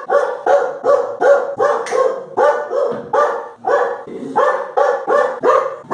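Dog barking over and over in a fast, even series, about three barks a second without a break.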